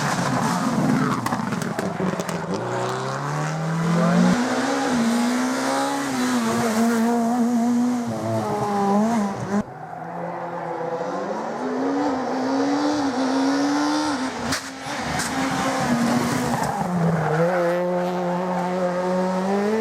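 Rally car engine at full throttle, climbing in pitch as it accelerates, holding, then dropping sharply and climbing again several times as it shifts gear and lifts off.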